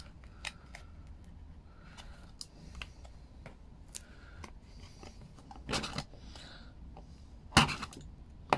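Knife scoring and cutting a stiff plastic filler spreader: scattered small scrapes and clicks, with two louder knocks in the second half.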